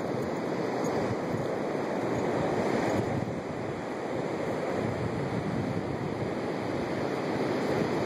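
Ocean surf, a steady rush that swells a little about three seconds in, with wind on the microphone.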